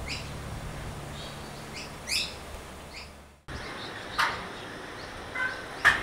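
Small birds chirping: short, high chirps that sweep downward, repeated several times. The sound drops out briefly about three and a half seconds in, and then sharper calls follow.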